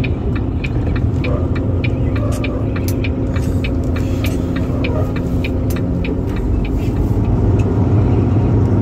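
Truck engine and road noise heard inside the cab while driving: a steady low rumble with a constant hum, dotted with many light clicks and rattles.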